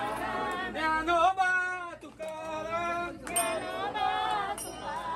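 Devotional singing (a bhajan) with long held notes, and a few light metallic clinks in the second half.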